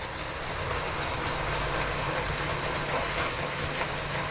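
Frying pan of chicken breast hissing and bubbling hard just after pasta water is poured in to deglaze it: a steady sizzle with faint crackles over a low steady hum.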